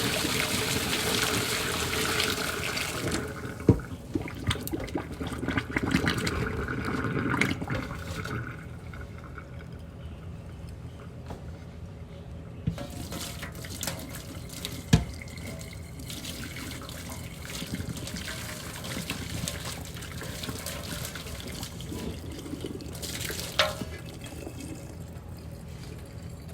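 Water poured out of a cooking pot into a sink, after boiling driftwood in it. It rushes loudly for about three seconds and runs on more quietly for a few seconds more, then a quieter stretch follows with a few sharp clicks and knocks of the pot.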